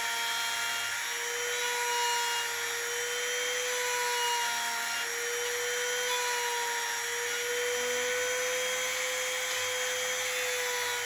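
Trim router running with a 1/4-inch spiral bit, cutting a mortise in a hardwood stool leg through a jig. A steady high motor whine over the hiss of the cut, its pitch dipping briefly about a second in and again around five seconds.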